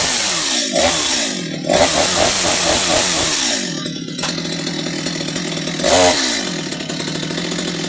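Stihl two-stroke chainsaw engine revved high, easing off and revving again, then dropping to a steady idle about four seconds in, with one short blip of the throttle near six seconds.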